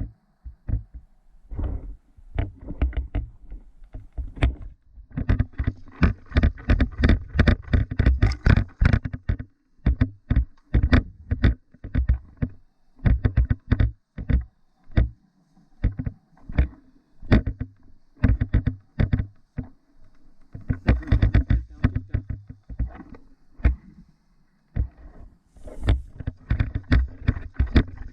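Irregular thumps and rustling from a person moving on foot through woodland brush, with several short pauses.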